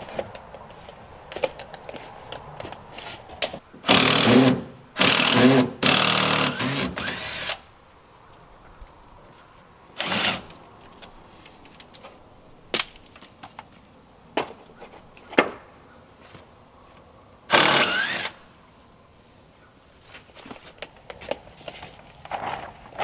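Handheld power drill running in short bursts: three close together about four seconds in, then single bursts around ten and eighteen seconds. A few sharp knocks come between the bursts.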